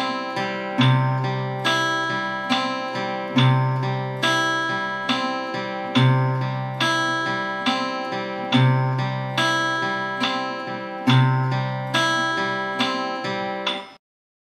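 Steel-string acoustic guitar played fingerstyle in a repeating 3/4 and 6/8 fingerpicking pattern: a bass note about every two and a half seconds, followed by picked higher strings ringing over it. The playing cuts off abruptly near the end.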